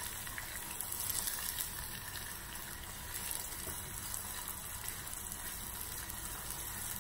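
Sliced onion frying in a little oil in a small saucepan, a steady sizzle as it is stirred and browned for a tarka.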